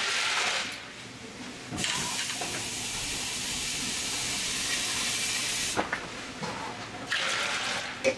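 A steady rushing hiss that starts abruptly about two seconds in and cuts off about four seconds later, with shorter bursts of the same kind of noise at the start and near the end.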